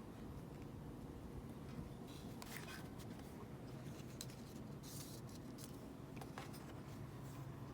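Faint handling sounds of a K-pop album's paper and plastic packaging: scattered light clicks and short rustles, one slightly longer rustle about five seconds in, over a steady low hum.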